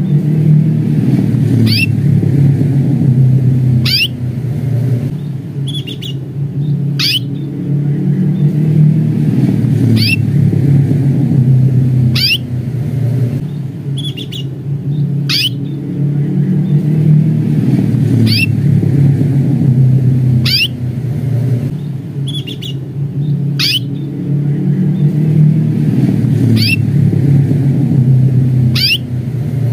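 Domestic canary giving sharp 'cuit' call notes: a quick sweeping chirp about every one to two seconds. The calls sit over a loud, steady low rumble like a running motor.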